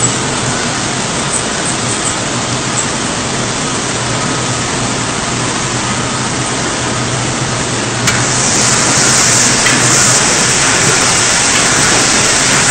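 Bottling-line machinery running: a steady hum under a hiss like spraying water or air. About eight seconds in there is a click, and a louder high hiss starts suddenly and keeps going.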